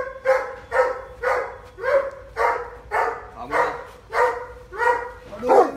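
Doberman barking repeatedly, about two barks a second, with a louder burst of barking near the end.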